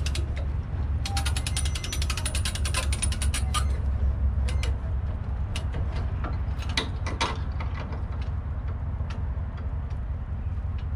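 Boat trailer winch being cranked, its ratchet pawl clicking in a fast even run for about three seconds, followed by a few single clicks.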